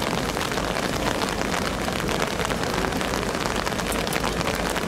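Heavy rain falling steadily, a dense ticking of drops.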